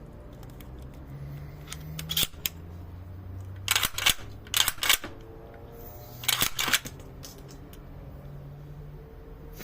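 Small metal parts clicking and scraping in a few short bursts of handling, over a low steady hum.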